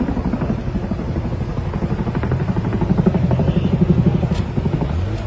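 Tandem-rotor helicopter overhead, its rotor blades beating in a fast, steady rhythm that grows louder toward the middle.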